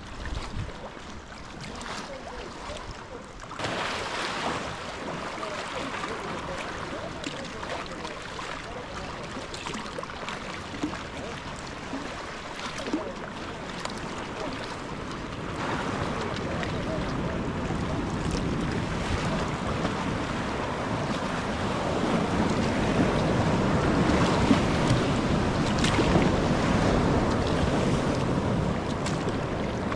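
Water splashing and lapping along a sea kayak's hull as it is paddled, with wind buffeting the microphone. It grows louder and rougher in the second half as the kayak moves out into choppy open water.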